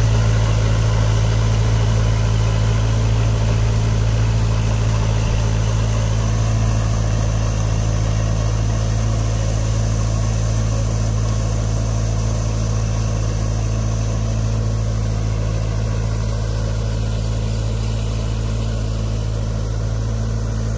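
Kubota MU4501 tractor's diesel engine running steadily under load as it pulls a 7-foot Shaktiman rotavator, a constant deep hum that fades slowly as the tractor moves away.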